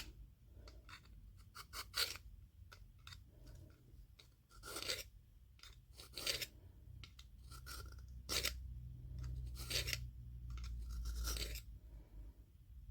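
A knife blade drawn through the slot of a Leatherman-branded Work Sharp pull-through sharpener: about six short rasping strokes, one to two seconds apart.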